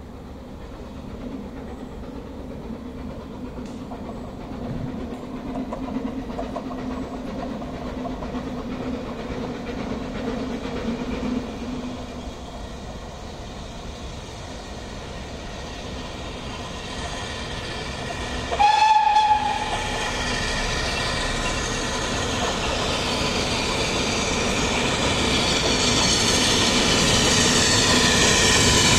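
BR Standard Class 4MT 4-6-0 steam locomotive 75078 running towards the listener with its train, growing steadily louder. About two-thirds of the way through it gives one short blast on its whistle, about a second long.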